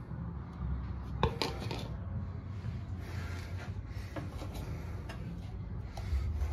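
Metal ceiling-fan parts being handled, with a few light knocks and clatter, the sharpest cluster about a second in, over a steady low hum.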